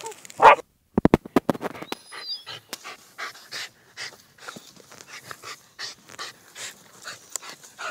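A dog panting quickly in short, even breaths, close to the microphone. It is preceded by a brief loud sound at the very start and a quick run of sharp clicks about a second in.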